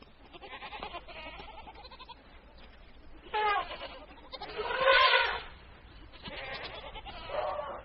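Goats bleating: a falling bleat about three and a half seconds in, then a louder, wavering bleat about five seconds in, with fainter bleats around them.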